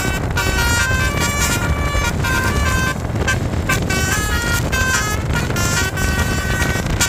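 Basuri telolet bus horn playing a quick melody of short stepped notes, with a pause of about a second near the middle, over the bus engine's low rumble.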